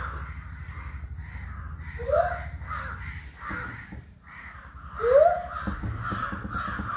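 Crows cawing over and over, with two short, louder rising cries about two and five seconds in.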